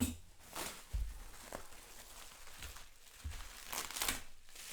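Plastic packaging crinkling and rustling in bursts as it is handled and unwrapped, with a couple of soft knocks.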